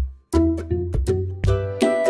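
Background music with a bass line and regular note attacks, dropping out for a moment just after the start before picking up again.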